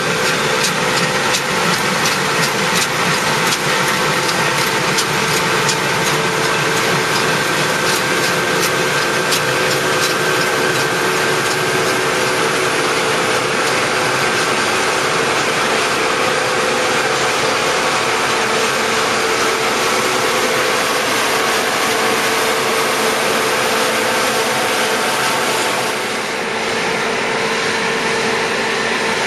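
Combine harvester running steadily, its diesel engine and threshing machinery giving a continuous mechanical noise with steady whining tones. A fast ticking rattle runs through the first ten seconds or so, and the sound dulls slightly near the end.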